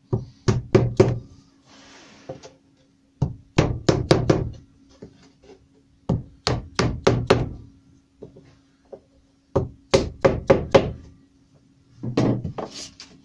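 Rubber mallet striking a small wooden block to tap tulipwood beading down into the corners of a cabinet door frame. The knocks come in quick runs of four or five, about every three seconds.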